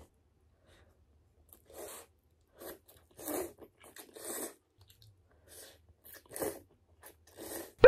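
A person slurping instant cup udon noodles off chopsticks: a series of short, loud slurps, about one a second.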